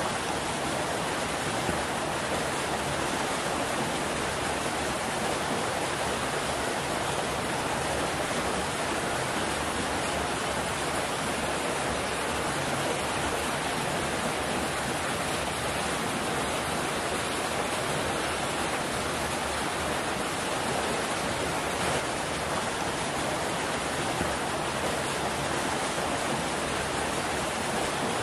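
Water pouring from inlet pipes into concrete trout raceways, a steady splashing rush that runs on without change.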